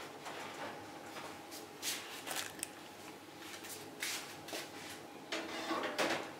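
Handling noises from a lidded Le Creuset cast-iron pot being lifted off a wicker trivet and carried away. There are a few brief knocks and scrapes, and the longest, loudest scraping clatter comes near the end.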